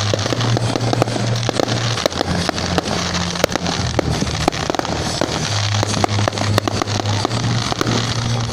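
Dense, irregular crackling and popping, many sharp reports in quick succession, over low sustained tones that shift in pitch every second or two.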